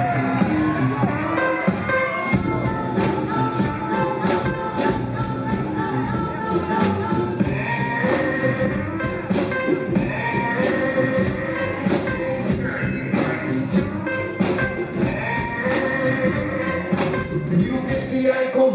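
Live rock band playing the opening of a song, with a steady drum beat.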